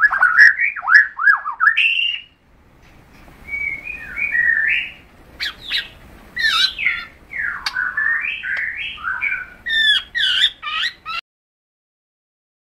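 Birds singing and calling: a quick run of sweeping, warbling chirps and squawks with short gaps between phrases, cutting off suddenly near the end.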